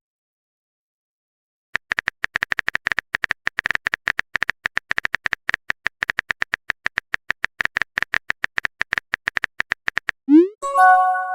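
Phone keyboard typing sound effect: a rapid, irregular run of short clicks, about eight a second, lasting roughly eight seconds. Near the end comes a rising swoop and a short chime, a message alert.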